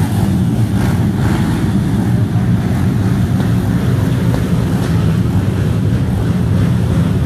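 A pack of motocross bikes running together at the start line, a loud, steady low engine drone.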